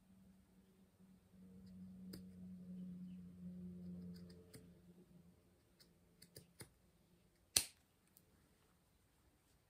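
Scissors snipping through thick cotton mop-head strands: a few scattered, quiet snips and clicks, with one sharp, louder snip about three-quarters of the way in. A faint low hum sits under the first half.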